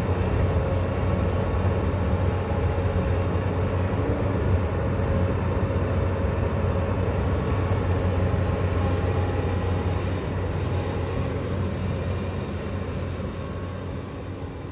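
Hyundai crawler excavator's diesel engine running steadily under load, with its hydraulics working as it digs and slews. It fades out over the last few seconds.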